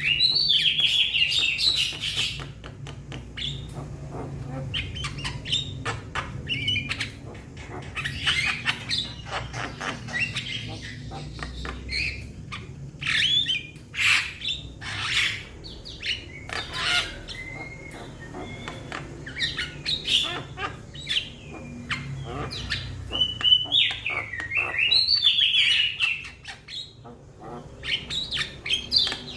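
Young Javan myna calling for companions: a busy, unbroken run of harsh squawks, chirps and rapid clicking notes, mixed with whistled notes that slide up and down.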